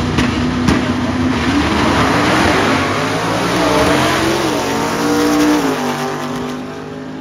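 Drag car engine under throttle, its pitch climbing and dropping several times, then fading away near the end.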